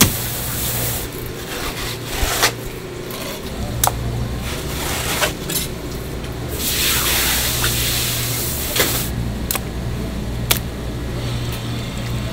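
Fish-filleting work sounds: sharp knocks and taps as a knife and flatfish fillets are handled on a plastic cutting board and in a plastic basket, over a steady low hum. About seven seconds in there is a second or so of rushing hiss.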